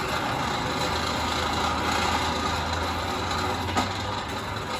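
Coal forge with its air blower running, a steady hum under the rush of the fire. A single light clink comes near the end as tongs work in the coals.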